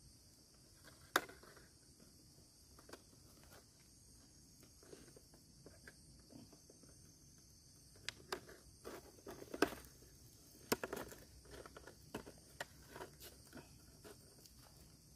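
Scattered soft clicks and crackles of a plastic-bottle fish trap being handled and tied shut with string, with a sharp click about a second in and a busier run of clicks in the second half.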